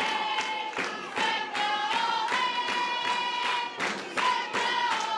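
A group of spectators singing a chant with rhythmic clapping, a sharp clap roughly every half second, over a held high tone.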